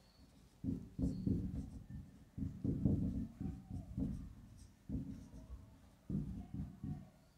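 Marker pen writing on a whiteboard: clusters of short rubbing strokes with brief pauses between words.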